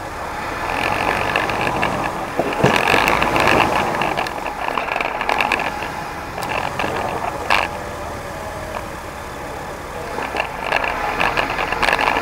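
Off-road 4x4 crawling over boulders in low gear. The engine rises and falls with the throttle, loudest about three seconds in and near the end, and there are a few sharp knocks of tyres or underbody on rock.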